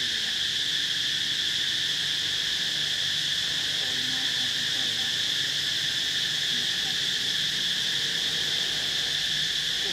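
Steady, high-pitched chorus of insects in the trees, a continuous drone that does not change. Faint, short wavering pitched sounds sit under it around four to five seconds in.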